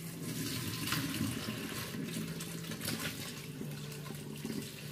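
Kitchen faucet running, water splashing into a stainless steel sink and a plastic bin of soaked angora goat fibre as the fibre is rinsed. The water comes on abruptly and runs steadily.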